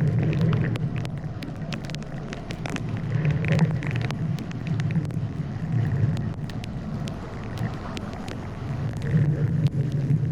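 Steady low rumble of travel noise on a small action camera's microphone, swelling and easing every few seconds, with scattered sharp ticks of rain striking the camera.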